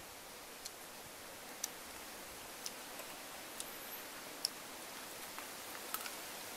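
Soft, crisp clicks about once a second over a steady faint hiss: chewing and crunching on a cooked chicken wing.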